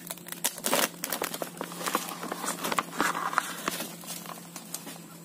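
Plastic sheet crinkling and crackling as it is peeled back off a wooden stingless-bee hive box. The rustling is busiest in the first four seconds and dies down near the end.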